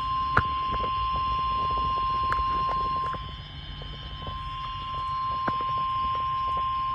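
Emergency Alert System attention signal: a single steady electronic tone near 1 kHz, held without a break, announcing that a severe thunderstorm warning message follows. A few faint clicks sound over it.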